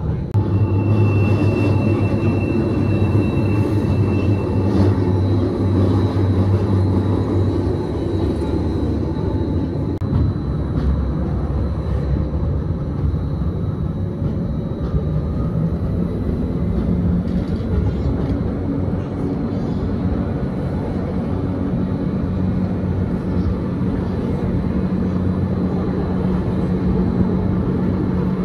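Gornergrat Railway's electric rack train running uphill: a steady rumble of wheels and drive with a low motor hum that shifts higher in pitch about two-thirds of the way through.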